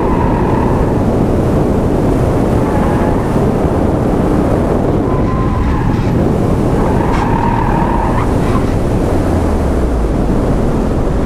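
Mazda Miata on all-terrain tyres driven hard through an autocross course: steady engine, road and wind noise, with the tyres squealing in short spells at the start, about five and a half seconds in, and from about seven to eight and a half seconds in.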